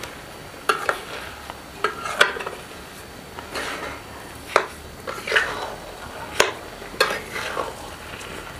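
A metal spatula scraping and clinking against a metal kadhai as grated carrots and sugar for gajar ka halwa are stirred. The strokes are irregular sharp clinks and short scrapes, about one a second.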